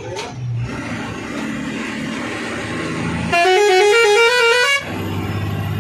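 Truck engine and road noise inside the cab. About three seconds in, a multi-note musical vehicle horn plays a quick stepping tune for about a second and a half, louder than everything else, then cuts off suddenly.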